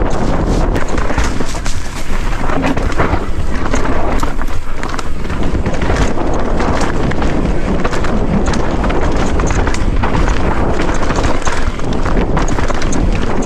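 Wind buffeting the microphone over a mountain bike descending a rocky trail, its tyres crunching over loose stones and the bike rattling and knocking continually over the bumps.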